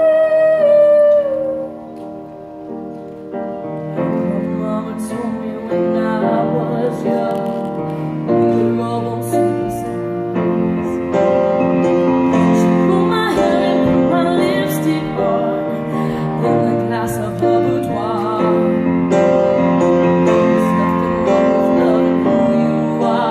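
Live upright piano playing a slow song, with a woman singing; a long sung note at the start slides slightly down and ends about a second and a half in.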